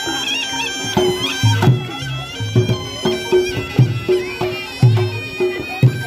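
Reog Ponorogo music: a slompret shawm plays a held melody over drum strokes, which come in about a second in and then fall roughly twice a second.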